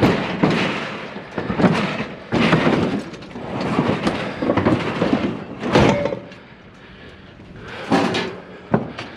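Scrap items being handled and shifted into place: a run of irregular scrapes, clatters and knocks, with a sharp bang about six seconds in and more knocks near the end.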